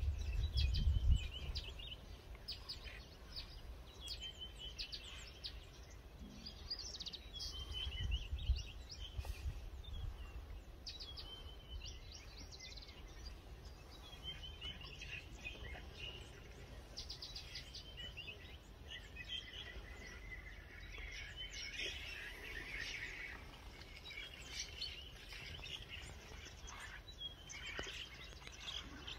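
Small birds chirping and calling over and over in the bush, over a low rumble that is strongest in the first second or two and again about eight seconds in.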